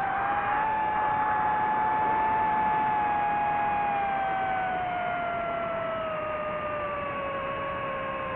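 FPV racing drone's brushless motors whining, the pitch falling slowly and evenly as the throttle eases off.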